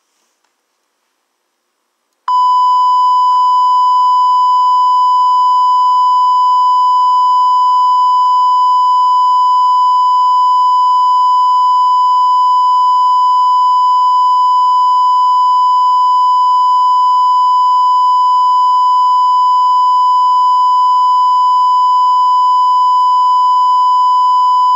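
Electronic test tone: a loud, steady beep at one pitch starts suddenly about two seconds in, after near silence, and holds without change.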